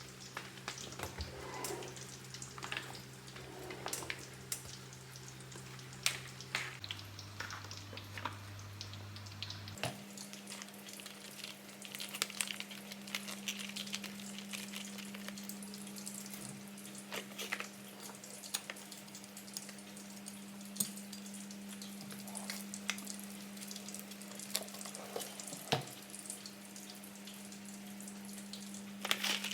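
Water or liquid running and dripping in a kitchen, with frequent light clicks and knocks of handled containers, over a steady low hum that shifts pitch twice near the start.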